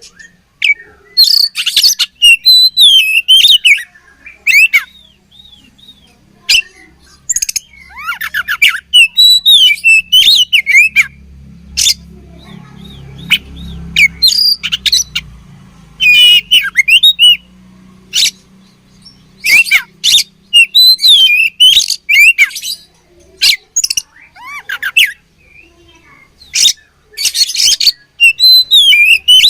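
Oriental magpie-robin (kacer) singing in loud bursts of rapid gliding whistles, trills and sharp harsh notes, broken by short pauses.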